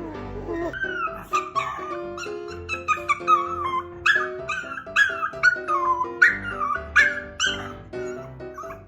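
A dog whining and yipping in quick high calls, about three a second, each sliding down in pitch, over background music with held notes.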